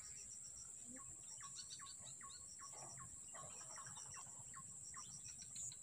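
Faint insect chorus: a steady high buzz with quick pulsed chirps in short runs, joined by a string of short calls that fall in pitch, repeated every half second or so through the middle.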